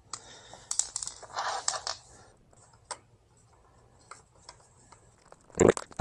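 Light handling noises from small metal parts, the brake caliper bolts being readied with a drop of thread-locker: irregular rustling and scraping with a few small clicks, then scattered faint ticks. A brief louder noise comes near the end.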